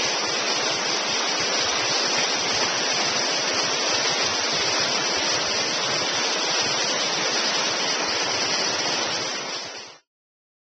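Whitewater rapids of a river running high in flood, at about 3,500 cubic feet per second: a steady rushing of water that cuts off suddenly near the end.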